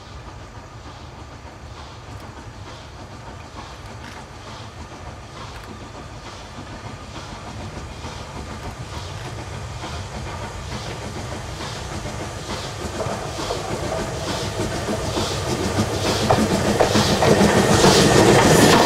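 LNER K4 class three-cylinder 2-6-0 steam locomotive working a goods train, its exhaust beating in a regular rhythm and growing steadily louder as it approaches, loudest near the end as it draws close.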